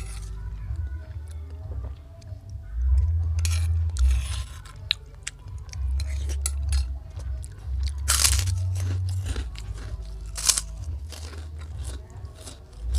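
Close-up eating sounds: crunchy bites and chewing, with a few louder crunches about eight and ten seconds in.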